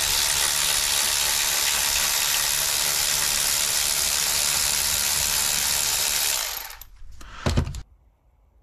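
Cordless electric ratchet running steadily as it drives an M10 x 1.25 bolt through a re-threading nut clamped in a vise, chasing the bolt's damaged threads. The motor stops about six and a half seconds in, and a short knock follows.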